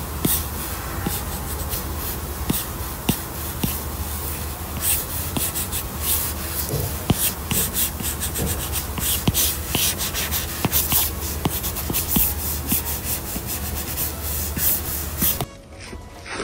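A pen tip scratching and rubbing across paper in many quick, uneven strokes as a drawing is inked, over a low steady hum. The strokes stop abruptly near the end.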